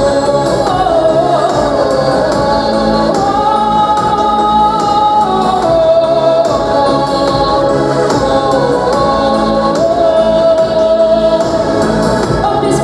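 Music with choir-like voices holding long notes that change pitch slowly over a steady accompaniment.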